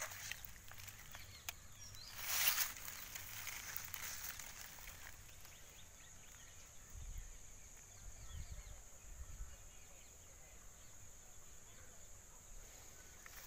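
Footsteps rustling through long grass, with one louder brush about two seconds in, over a steady high-pitched insect drone.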